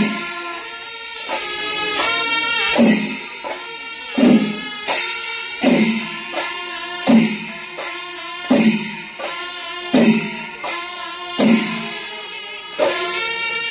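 Kerala temple melam ensemble playing: chenda drums and ilathalam cymbals in a steady rhythm, with a strong accented beat about every one and a half seconds and pitched notes held over it.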